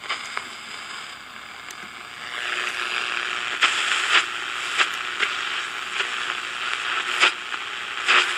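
Static hiss and crackle from the speaker of a small 11-band portable shortwave radio being tuned across a shortwave band with no station coming through. The hiss grows louder about two seconds in, with sharp crackles popping through it.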